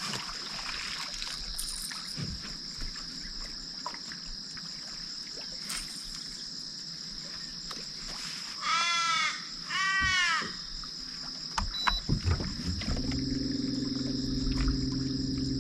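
Crow cawing twice, two drawn-out calls a second apart, over a steady high hum of insects. Near the end a few clicks are followed by a low, steady motor hum.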